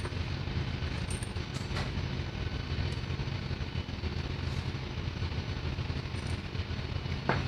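Steady low drone of running machinery, with a few light metallic clicks from fuel injection pump parts being handled and one sharper knock near the end.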